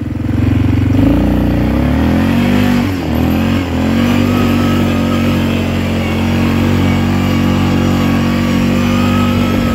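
ATV engine revving up hard as the four-wheeler pulls away across a wet, muddy field. The revs dip briefly twice about three seconds in, then hold steady and high.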